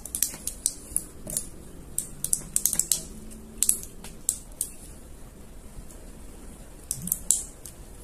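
Light, quick clicks and ticks of enamelled copper winding wire being pressed by hand into the slots of a Venti Sol wall-fan motor stator as the start winding is fitted. The clicks come in irregular clusters, stop for about two seconds, and return in a short burst near the end.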